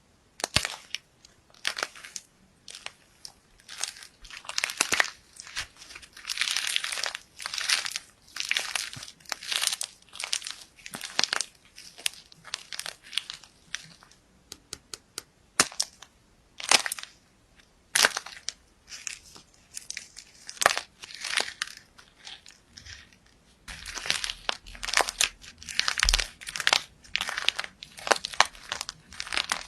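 Slime being squeezed and pressed by hand, a run of short crackling squishes, about one or two a second, with a quieter stretch of small clicks about halfway through.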